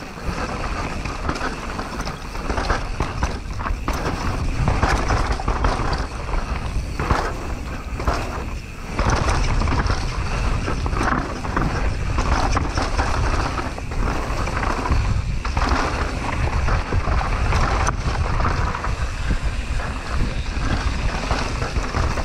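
Mountain bike riding downhill on a rough trail, with tyres rolling over the ground and the bike rattling and knocking over bumps. Steady wind rush on the microphone runs underneath.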